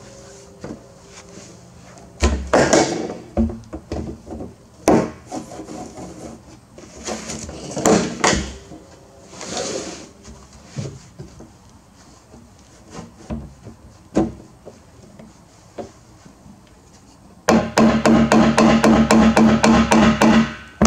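PVC pipe being pushed and worked through tight holes drilled in a plastic 55-gallon drum: irregular scraping and rubbing, with knocks of the pipe against the barrel. Near the end, a short burst of fast rhythmic music that cuts off suddenly.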